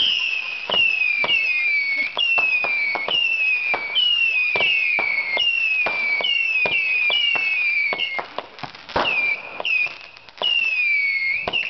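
Pyro Predator 325-shot Saturn missile battery firing its small rockets in quick succession. Each shot is a short whistle falling in pitch, about two a second, mixed with sharp pops. There is a short lull near the end, then a few more whistles.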